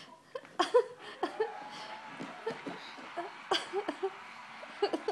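A small dog play-fighting with a hand puppet: short yips and growl-like sounds that bend in pitch, broken by a few sharp snaps.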